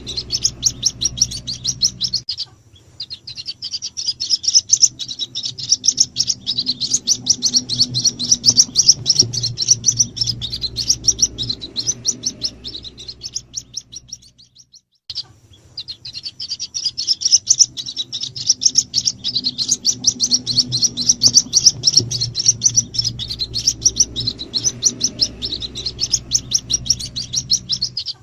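White-breasted waterhen chicks peeping in a rapid, continuous stream of high chirps, a lure call used to draw the parent birds. The stream cuts out briefly twice, about two seconds in and around the middle.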